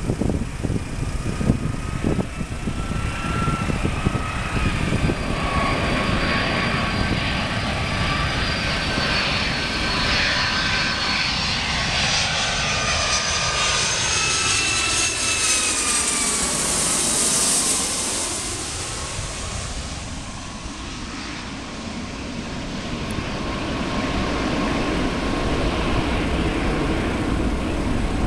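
Boeing 757-200 jetliner on final approach, its engines whining and rumbling as it flies in low and passes close overhead, with a swooshing hiss at its loudest as it goes by. The whine then falls in pitch and the sound dips before a deep jet rumble builds again behind it.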